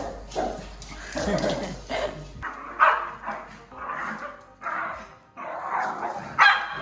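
Small dog barking in a series of short, excited barks while being played with and roughhousing.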